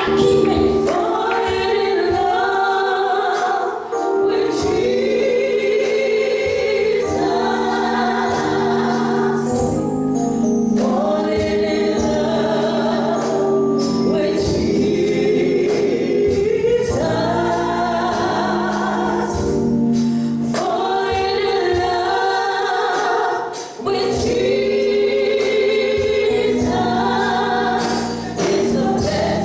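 Gospel choir singing with instrumental accompaniment, in long sung phrases.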